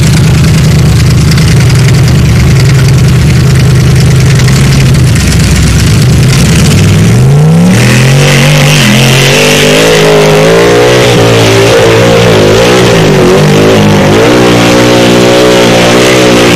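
Loud Formula Offroad buggy engine, at first running at steady low revs, then about seven seconds in revving up sharply. The revs keep rising and falling under hard throttle as the buggy climbs a steep sand-pit wall.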